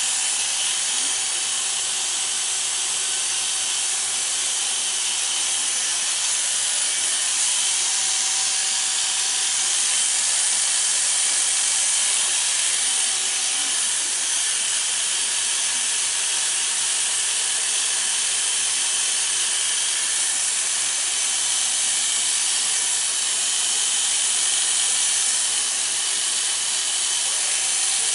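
Corded electric hair clippers running steadily as they cut hair close on the back and sides of a head, a constant hum with a hiss that does not break.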